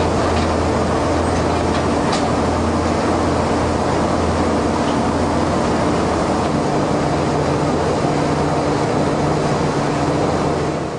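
Rice mill machinery and its steam plant running steadily: a loud, even, low mechanical drone with no clear beat, fading out at the very end.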